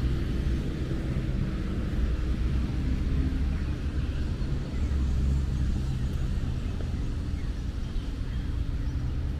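Steady road traffic: the low, continuous engine rumble of passing vehicles.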